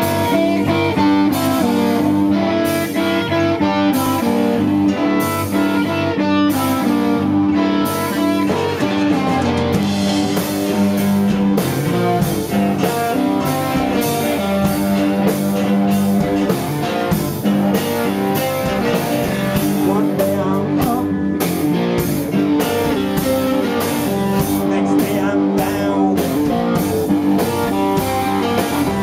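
Rock music played by a band, led by electric guitar over a drum kit with a steady beat.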